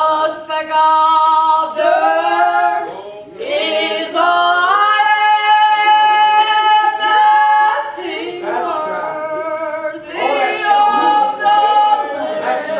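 Two women singing a gospel song together, unaccompanied, with a long held note in the middle.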